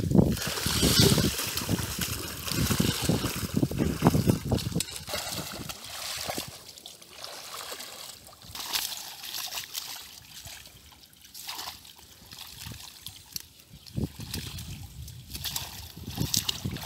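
Shallow muddy water splashing and sloshing as children wade through it and grope in it by hand. Heavy splashing for the first five seconds or so, then quieter, scattered splashes.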